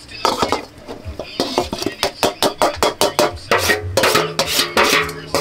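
Metal spoon scraping and knocking against an aluminium bowl as chopped seasoning is tipped into a pot: a fast run of clinks and scrapes. Background music with a beat comes in about four seconds in.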